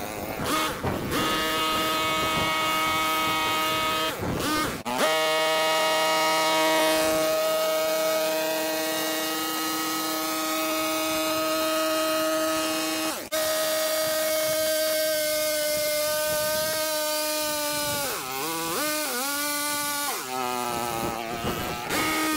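Motor of a handheld power trimmer running steadily at speed during hedge and ivy trimming. It drops out briefly about five seconds in and again about thirteen seconds in, and its pitch sags and recovers several times about three-quarters of the way through.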